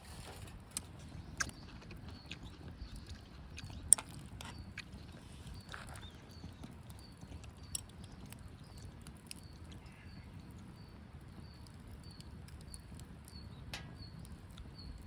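Wood campfire crackling: a low steady rumble with scattered sharp pops, the loudest about four seconds in. From about halfway through, a faint high chirp repeats about twice a second.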